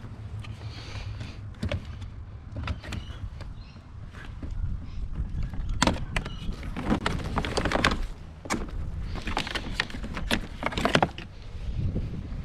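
Objects being handled and moved about: irregular knocks, clatters and rustling, with the loudest bursts of knocking in the middle and again near the end.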